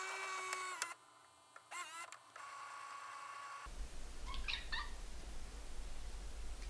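A short logo sound effect of held electronic tones and quick rising glides, cutting off about three and a half seconds in. Then a low steady hum and a tabby cat's short meow about a second later.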